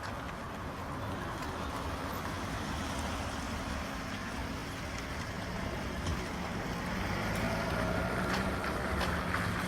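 Street traffic: a motor vehicle's engine running close by, its steady hum coming in about halfway through and growing a little louder, over a constant wash of road noise.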